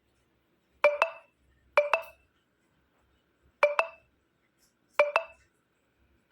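Light clinks in five quick pairs, each with a brief ringing tone, spaced unevenly about a second or two apart.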